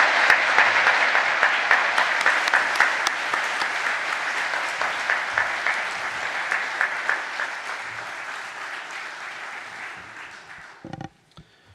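Audience applauding, loudest at the start and gradually dying away until it stops about eleven seconds in, with a short knock just as it ends.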